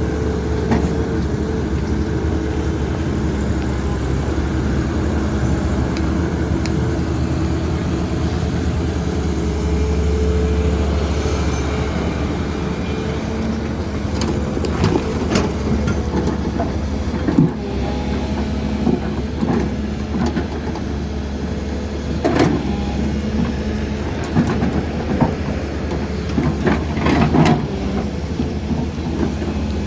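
Heavy diesel excavator engine running steadily. From about halfway through, a run of sharp knocks and clanks sounds over it.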